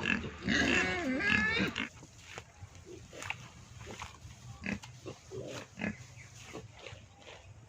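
An animal's calls: loud pitched calls that waver up and down for about the first two seconds, then only faint scattered clicks and a few short, soft grunt-like calls.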